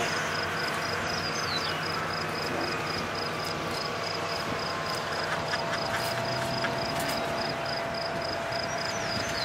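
Outdoor ambience of an insect chirping in an even, rapid pulse, about four chirps a second, over a steady rush of noise. Two short falling whistles come near the start and again at the end.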